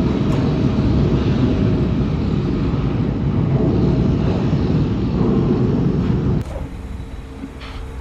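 Heavy machinery running with a loud, steady rumble. About six and a half seconds in it drops abruptly to a quieter hum.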